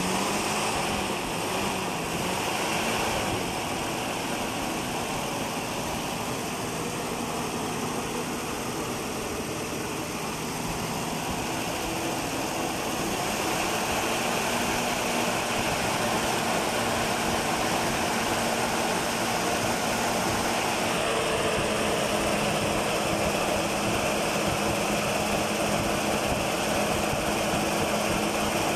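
1967 Nissan Patrol's 4.0-litre P-series straight-six engine running steadily. Its speed steps up slightly about 13 seconds in and again about 21 seconds in.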